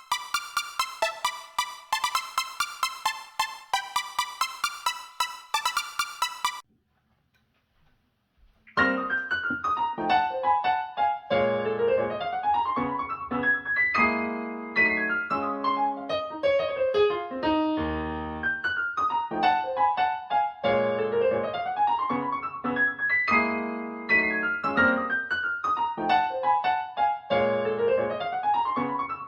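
Recorded music played back through Fyne Audio F500 SP loudspeakers in a room. A piece of quick, bright repeated notes stops about six seconds in; after a pause of about two seconds, a piano piece with rising and falling runs begins.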